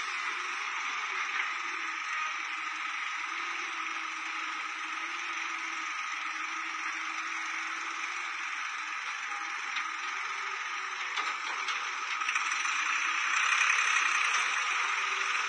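Halla hydraulic excavator's diesel engine running steadily as it works, with a rattle, growing louder about twelve seconds in.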